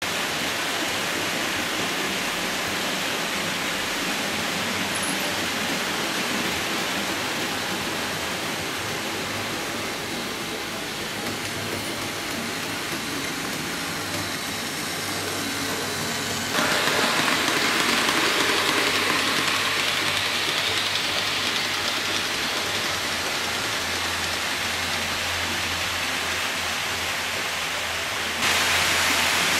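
Model railway in operation: a steady rushing hiss from the running trains. It jumps suddenly louder about halfway through and again near the end, with a low hum joining in the last few seconds.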